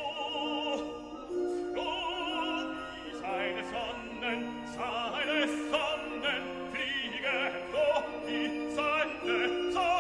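Operatic singing with a strong vibrato over orchestral accompaniment, the fireworks show's music soundtrack, with a few sharp cracks over it.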